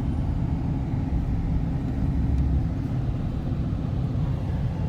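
Steady low rumble of a vehicle driving along a road: engine and tyre noise heard from inside the vehicle.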